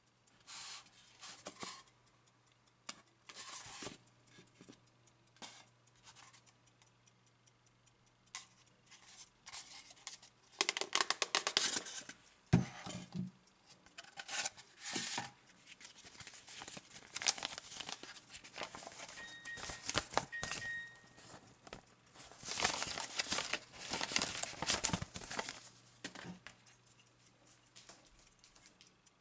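A polystyrene foam packing case being opened and handled: foam rubbing and scraping, paper crinkling, and irregular clicks and knocks, with one heavy knock about midway and a brief squeak a little later. A faint steady low hum runs underneath.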